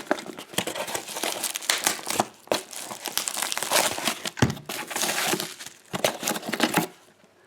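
A cardboard parcel being opened by hand and its packing material rustled and crumpled: a dense run of irregular crinkling and crackling with sharp little snaps, stopping about seven seconds in.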